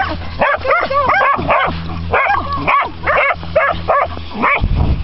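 A dog yipping and barking excitedly during play, several short rising-and-falling calls a second, over a steady low hum. The calls break off near the end.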